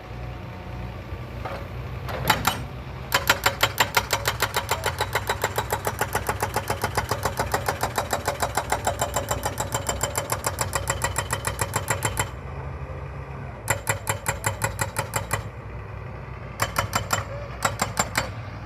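Jackhammer pounding stone with rapid, evenly spaced blows: one long burst of about nine seconds, then several short bursts. An engine hums steadily underneath.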